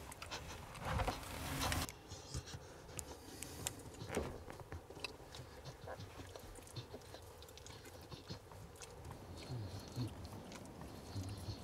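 Newborn beagle puppies suckling at their mother, small wet smacking clicks scattered throughout, with a brief louder rustle about a second in.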